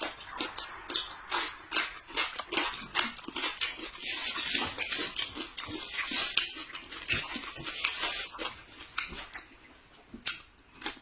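Close-miked eating sounds: chewing and wet mouth smacks in quick, irregular succession, denser and hissier in the middle.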